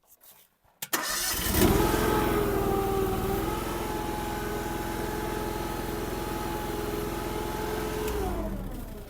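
Derette DRT450 mini skid steer's engine starting suddenly about a second in and running steadily, with a brief dip in pitch around three seconds in. It shuts down near the end, its note sinking as it dies away.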